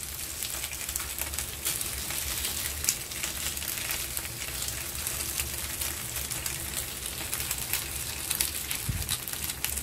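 Black cod steaks frying in oil on a ridged grill pan: a steady sizzle with frequent small crackles and spits.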